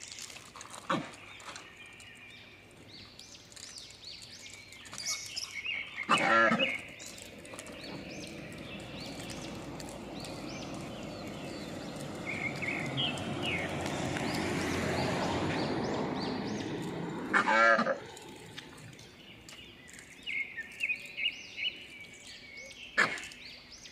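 Two loud, drawn-out animal calls, about six and seventeen seconds in, over a long swelling noise that builds and fades between them, with bird chirps near the start and end.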